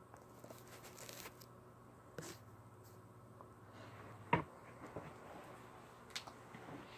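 Handling noise while the camera is being set up: scattered light rustles and clicks, with one sharper knock about four seconds in, over a faint steady low hum.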